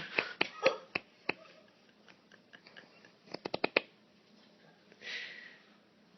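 A napping man's sleep noises in place of a snore. A run of quick, sharp clicks at the start and another about three seconds in, then a short breathy hiss with a faint whistle about five seconds in.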